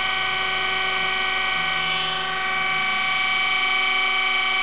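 Surface grinder spindle and ATCO motorized electric centers running with a steady whine of several tones, while the grinding wheel takes a light pass over a hardened steel drill bushing. The bushing is not yet cleaned up all the way round, so the wheel is not cutting the whole circumference. The sound dips slightly about two seconds in, then a higher tone comes up.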